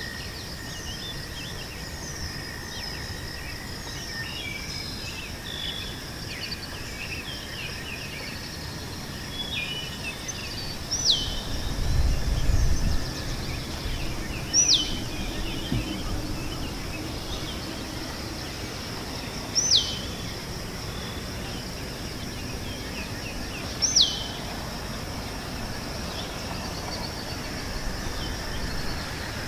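Birds calling over a steady high insect drone. Several short chirps come in the first ten seconds, then one bird repeats a sharp whistle that slides down in pitch, four times at about four to five second intervals. A brief low rumble sounds about twelve seconds in.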